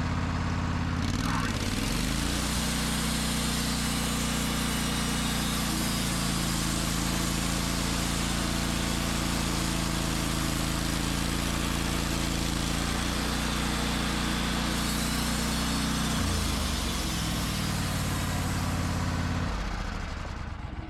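Band sawmill running under load, its engine steady and the blade cutting through an oak log. Near the end the engine drops and winds down as the cut is stopped just short of the blade hitting one of the mill's log dogs (clamps).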